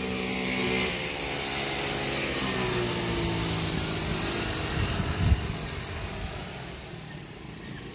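Moped's small engine running as it goes by on the street, its pitch sliding down a couple of seconds in, then fading away over the last couple of seconds. A short low thump about five seconds in.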